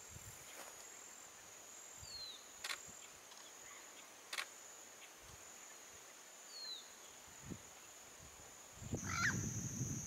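Steady high-pitched insect drone, with two short falling bird chirps and a couple of sharp clicks. Near the end a louder low rustling noise comes in.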